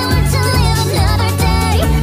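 Nightcore (sped-up, pitched-up) pop song: a high female voice singing a melody with vibrato over a steady bass line.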